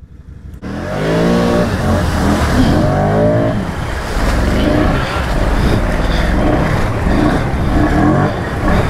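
ATV engine revving hard in repeated rising and falling surges over a rough rushing noise, as the quad churns in a deep mud hole. It starts suddenly about half a second in.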